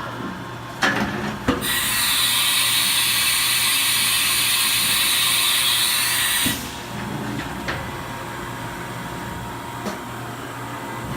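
1999 Haas VF-4 vertical machining center running a program: a steady machine hum, two clunks about a second in, then a loud hiss for about five seconds that cuts off suddenly, followed by a few light clicks.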